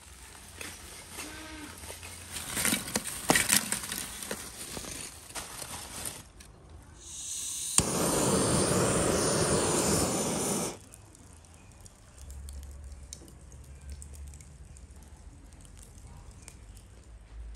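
Lumps of charcoal clattering and knocking as they are poured from a sack into a clay stove. About seven seconds in, a sharp click and a loud steady hiss that lasts about three and a half seconds and cuts off suddenly.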